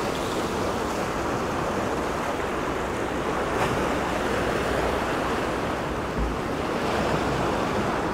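Ocean surf breaking and washing over a rocky shore, a steady rush of water.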